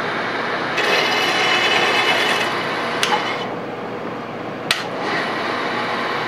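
Milling machine spindle running with a 10-24 tap held in its drill chuck and being power-fed into a metal part, the cutting heard as a harsher, higher scraping for about two seconds near the start. Two sharp clicks come about three and four and a half seconds in, and the machine then runs on steadily as the tap backs out of the threaded hole.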